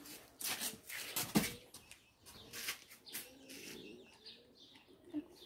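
Pigeons cooing faintly, with short clicks and crunches as a Samoyed takes dry dog food from a hand.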